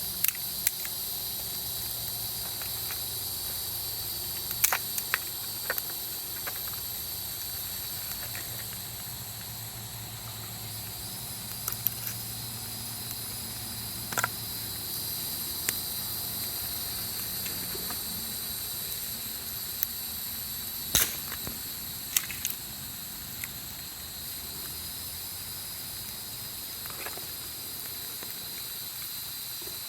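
Wood campfire burning with scattered sharp pops and crackles, the loudest about two-thirds of the way through, over a steady high-pitched hiss.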